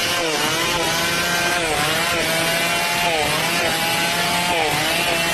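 Chainsaw cutting coconut lumber, its engine running at high revs with the pitch dipping briefly under load and recovering about every one and a half seconds.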